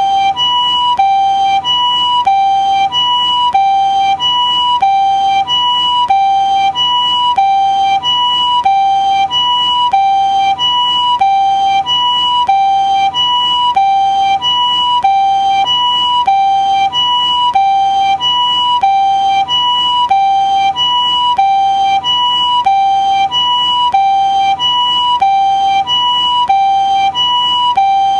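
Japanese ambulance siren sounding its two-tone "pee-poh" call: a higher and a lower steady tone alternating evenly and without change.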